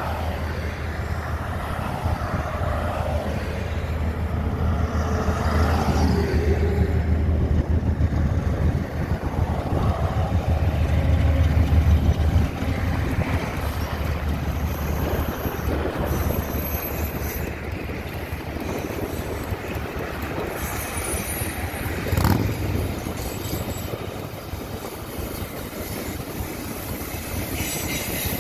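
Diesel locomotive approaching and passing at speed, its engine drone growing to its loudest about halfway through, followed by passenger cars rolling by on the rails. Cars pass on the road close by, and there is a single knock near the end.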